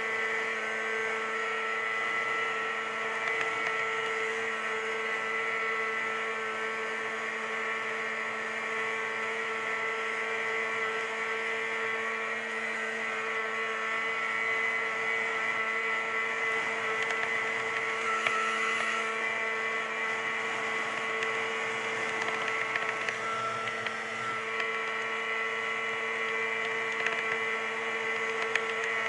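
Snowmobile engine running at a steady cruising speed, an even drone whose pitch stays constant throughout.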